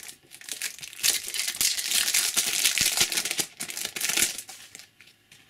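Shiny foil wrapper of a trading-card pack being opened and crinkled by hand: a dense crackling rustle that fades away near the end.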